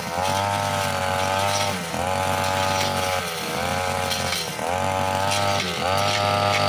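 Backpack brushcutter engine running at high revs while its metal blade cuts through grass, ferns and scrub. The engine note dips under load and climbs back about every second and a half as the blade is swung through the growth.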